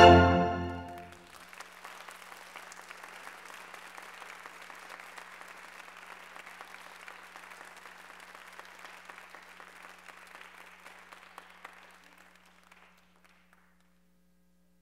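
Orchestral music ends on a final chord about a second in, then an audience applauds for about eleven seconds, fading out near the end.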